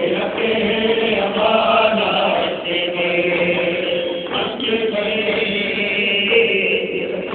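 Voices chanting a Muharram mourning chant (noha), a melodic recitation with long held notes.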